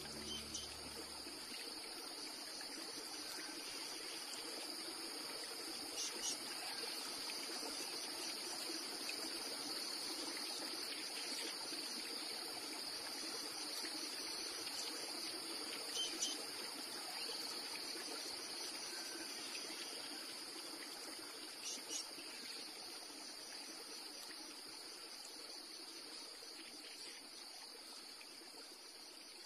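Nature-sound background of crickets chirping steadily over a trickling stream, with a few faint brief clicks scattered through. It slowly fades toward the end.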